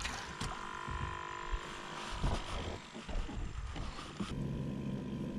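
Electric trolling motor running steadily, holding the boat on the spot; about four seconds in its hum shifts to a lower, deeper tone.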